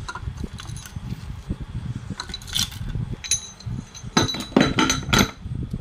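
Light metallic clinks and taps from metal engine parts and tools being handled: a few single clinks midway, then a quick cluster of sharper clinks near the end, over a low background rumble.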